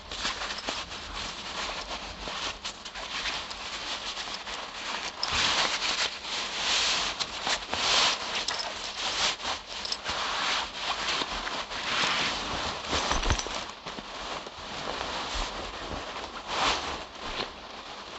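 Sleeping-bag fabric rustling and rubbing as it is handled, an uneven run of crackly swishes and small scrapes.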